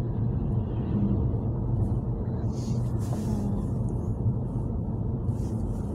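Steady low rumble of engine and tyres heard inside a moving car's cabin, with a couple of brief faint hisses about halfway through and near the end.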